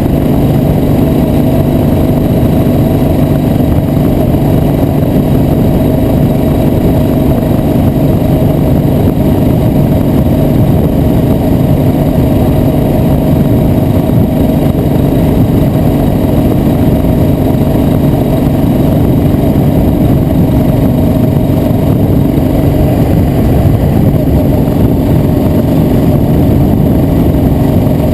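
A vehicle engine running at a steady cruise, with road and wind noise loud on the microphone while riding.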